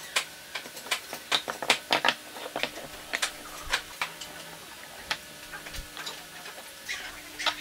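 Light wooden clacks and taps as the pieces of a homemade wooden router guide jig are handled and fitted together on a workbench. The knocks come thick and irregular for the first couple of seconds, then only now and then.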